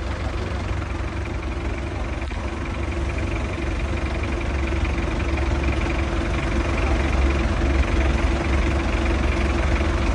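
Forklift engine idling steadily: a low rumble with a steady hum above it.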